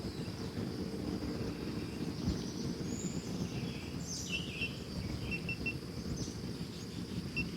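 Outdoor ambience: a steady high-pitched insect drone with a few bird chirps, among them a quick run of three short notes about five and a half seconds in, over a low background rumble.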